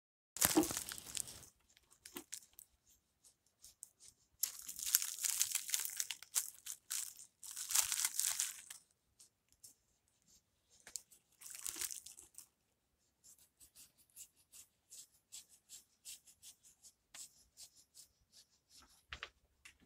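Dry, scratchy rasping in several bursts of one to two seconds, then lighter scattered ticks: paintbrushes scrubbing across paper.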